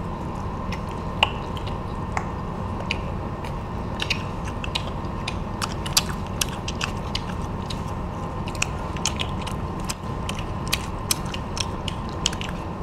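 Crunching and chewing of crispy battered fried shrimp close to a clip-on microphone, heard as irregular sharp crackles over a steady low hum.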